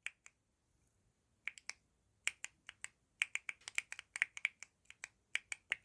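Thocky-style mechanical keyboard switches in a 3D-printed keyboard fidget toy, pressed over and over: an irregular patter of short, very quiet clicks, a couple at first, then coming thick and fast from about a second and a half in.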